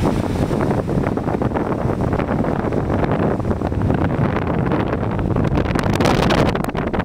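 Wind buffeting the microphone: a loud, uneven rumble with no clear tone, gusting stronger for a second or so about five to six seconds in.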